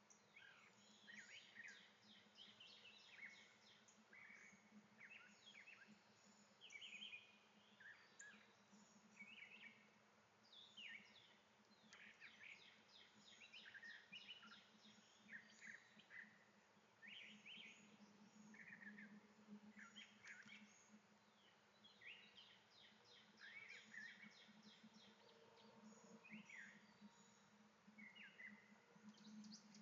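Faint chorus of small songbirds, many short chirps and trills overlapping all through, over a steady low hum.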